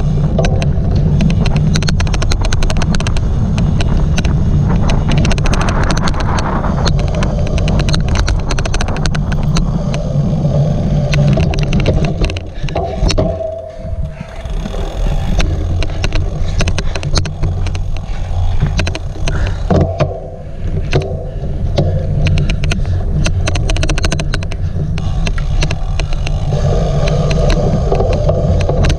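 A cyclocross bike ridden at race pace: a steady low rumble of wind on the microphone and tyres over the course, with an odd, rapid, irregular clicking throughout. The rumble drops off briefly twice, about halfway through and again about two-thirds of the way in.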